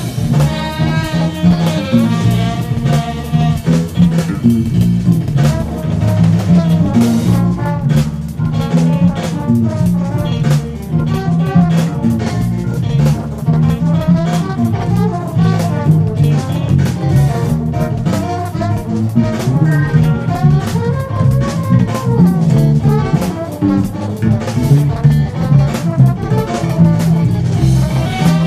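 Funk-jazz band music: horns and a drum kit over a prominent, busy electric bass line, with an electric bass fingerpicked along with the recording.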